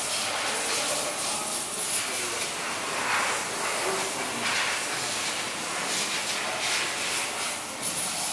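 Paintball encapsulation machine running with its die roll turning: a steady hissing, rushing mechanical noise with small swells now and then.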